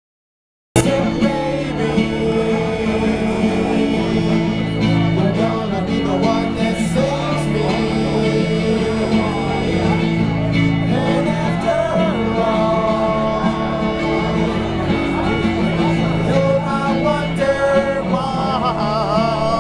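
Silence for under a second, then live band music cuts in abruptly: a male singer with a microphone over guitar accompaniment.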